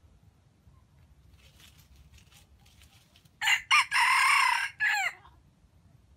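Red junglefowl cock crowing once, about three and a half seconds in: two short clipped notes, a long held note, and a short falling note at the end.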